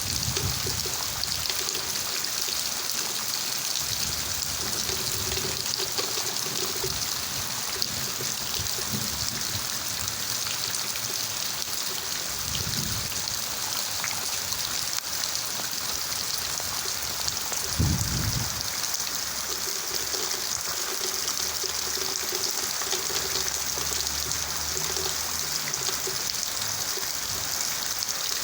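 Steady rain falling, with a trickling sound of running water. A few brief low thumps, the loudest about two-thirds of the way through.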